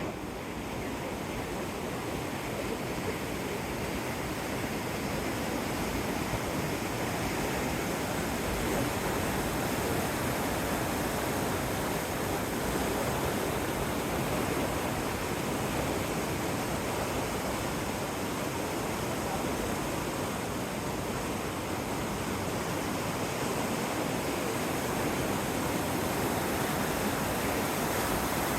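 Water pouring steadily over a weir into a mill pond, a continuous rushing that holds even throughout.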